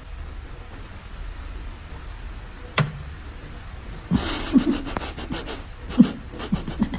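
An animal panting in quick, breathy bursts over the last three seconds, over a steady low rumble, with a single sharp click near the three-second mark.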